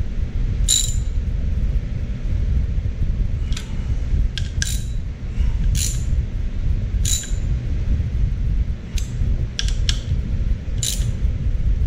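Ratchet wrench on a long extension clicking in short strokes as a bolt holding a plate is snugged down, only hand-tight so the plate does not bend: about ten sharp separate clicks at uneven spacing. A steady low rumble runs underneath.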